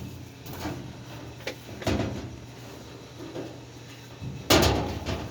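Scattered knocks and clunks of parts being handled, with a louder clunk about two seconds in and the loudest bang, trailing off in a brief rattle, about four and a half seconds in, over a steady low hum.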